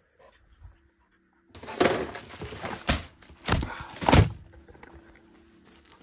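Rustling and handling noise with three sharp thumps, starting about a second and a half in and fading near the end, as a plastic-sleeved photo album is picked up and opened.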